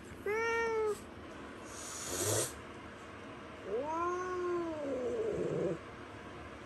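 Domestic tabby cat meowing twice: a short call just after the start, then a longer yowl that rises and falls in pitch. A brief hiss-like burst of noise comes between the two calls.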